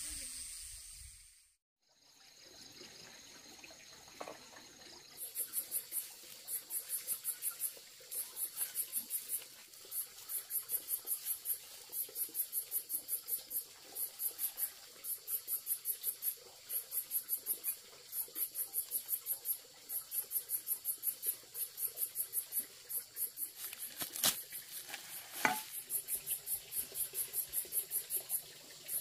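Insects chirping: short, high trills of rapid pulses, repeating once or twice a second from about five seconds in. A couple of brief clicks near the end.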